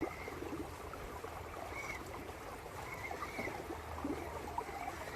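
Creek water trickling and gurgling steadily.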